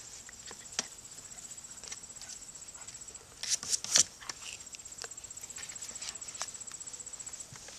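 Insects trilling steadily with a fast, high pulse, under light scuffles, clicks and rustles of puppies playing on grass. About halfway through come two sharper scuffs close together, the loudest sounds here.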